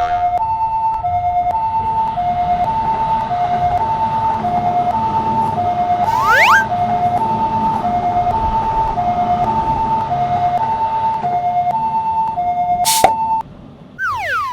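Two-tone electronic level-crossing alarm of the British type, alternating a high and a low note about once a second, cutting off near the end. A brief rising whistle about six seconds in and a sharp click just before it stops.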